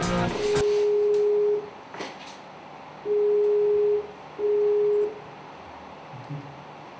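Computer video-call tone while a call is being placed: one steady, single-pitched beep held about a second and a half, then two shorter beeps a little over a second apart. Guitar music cuts off in the first half second.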